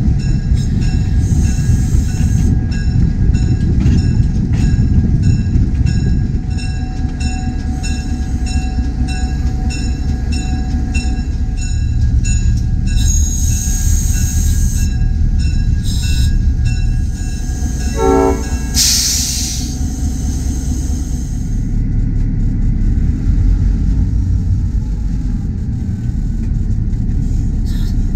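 A train running with a steady heavy rumble and regular beats for the first half. Two loud hissing bursts come about halfway through and again about two-thirds of the way through.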